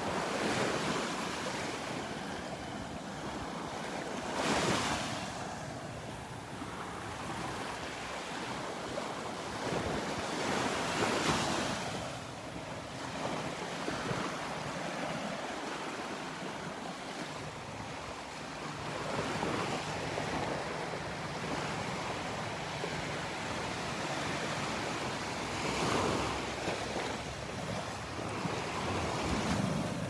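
Gulf of Mexico surf washing onto the beach, swelling every several seconds as waves break, with wind buffeting the microphone.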